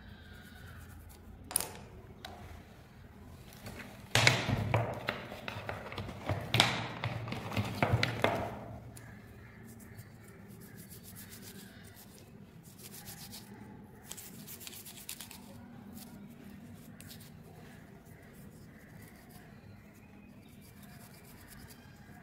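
Toothbrush bristles scrubbing the rusty metal connector of a USB drive in quick, rapid strokes, loud for about four seconds from a few seconds in, then softer scratching. A single sharp tap comes about a second and a half in.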